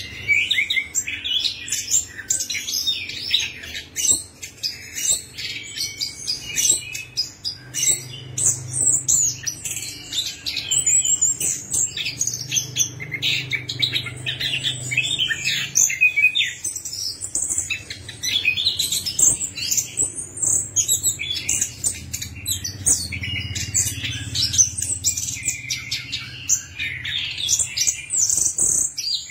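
Chestnut-capped thrush (anis kembang) singing a long, unbroken song of quick, varied high chirps, trills and whistles.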